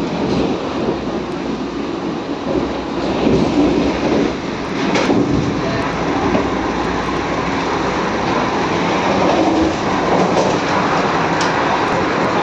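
Running noise of a Vande Bharat electric multiple-unit train heard from inside the coach: a steady rumble and rattle of the moving train. A few sharper knocks and clatters stand out, one about five seconds in and another near the end.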